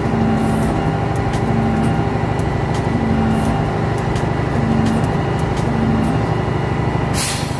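The diesel carrier engine of a Tadano Faun ATF 70-4 all-terrain crane runs steadily at idle, with a hum that pulses about once a second. A short hiss comes near the end.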